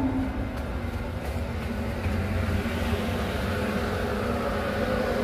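A container ship's machinery running with a steady low drone and a constant hum.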